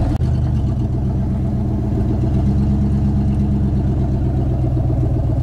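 Ford F-150 pickup's engine running steadily as the truck drives, heard from inside the cab as a steady low drone.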